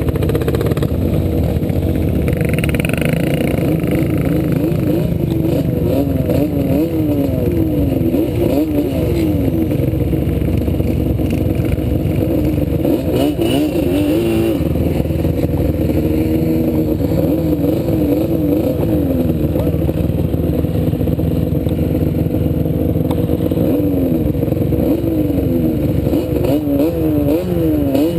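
ATV engine being ridden, its pitch rising and falling over and over as the throttle opens and closes and it shifts gears, over a constant low rumble.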